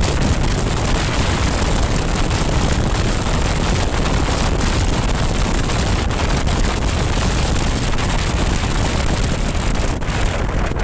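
Wind rushing and buffeting over a camera microphone on a BMW R1200GS Adventure motorcycle riding at road speed. The rush eases near the end as the bike slows.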